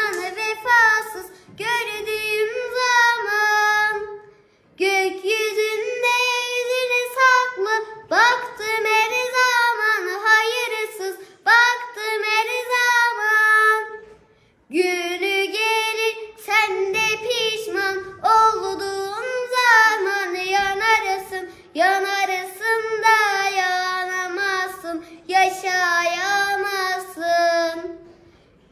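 A young girl singing a Turkish song solo and unaccompanied, in long phrases with wavering, ornamented pitch and short pauses for breath between them.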